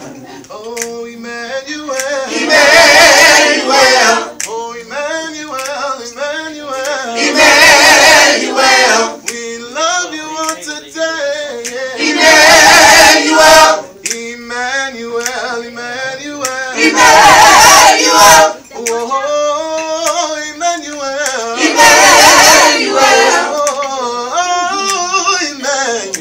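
Mixed gospel choir of men and women singing a cappella. Five loud, full held chords come about every five seconds, with softer, moving lines between them.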